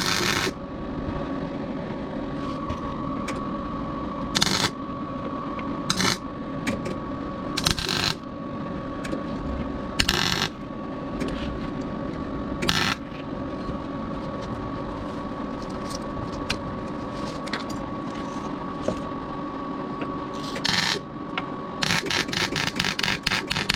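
Metalworking on a rusted car subframe: a steady tool noise with a thin high whine, broken by several short, loud bursts.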